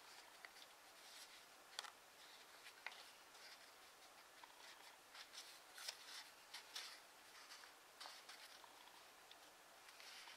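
Faint rustling and crinkling of origami paper being folded and creased by hand, with scattered sharp little clicks as the folds are pressed.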